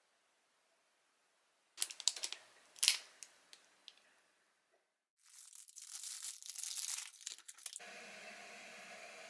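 Clear plastic wrapper crinkling as a packaged cinnamon roll is handled, first in short crackles and clicks, then in a longer stretch of crumpling and tearing as it is unwrapped. A steady hum starts near the end.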